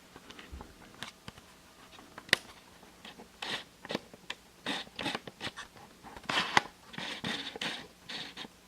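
Rustling and scraping handling noises with scattered sharp clicks, irregular and busier in the second half.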